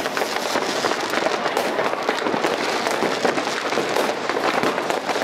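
Many New Year's Eve fireworks and firecrackers going off at once: a dense, unbroken crackle of small bangs with no pause.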